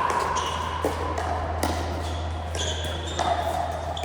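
Pickleball rally: a string of sharp hard-paddle hits on a plastic ball and ball bounces on an indoor court, with a high squeak in the last second or so.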